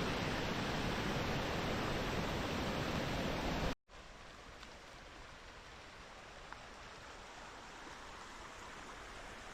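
Steady rush of flowing water. It is loud for nearly four seconds, then cuts off abruptly to a much fainter, steady water sound.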